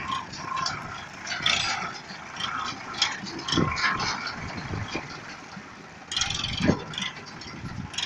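Sonalika DI 35 diesel tractor running as it is driven over rough ground, with irregular rattling and clanking from its body and fittings.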